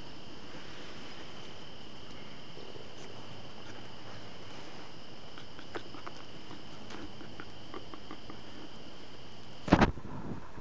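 Steady high-pitched insect chirring with a few faint clicks, broken near the end by a loud, brief double knock.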